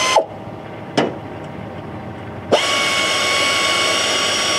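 Pneumatic air ratchet running down the nuts on a hydraulic filter canister cap: a steady high whine that winds down just after the start, a single click about a second in, then the whine again from about two and a half seconds on.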